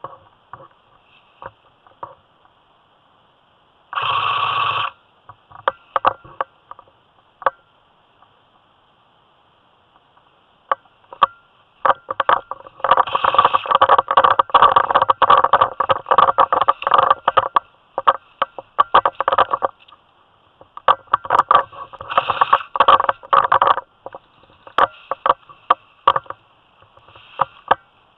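Footsteps crunching and rustling through dry fallen leaves, in dense irregular spells, with a short loud burst of sound about four seconds in.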